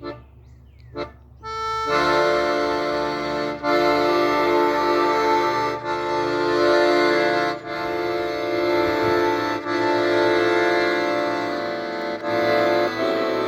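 Accordion playing held chords, coming in loud about two seconds in and pausing briefly every couple of seconds. Before it enters there are two short knocks.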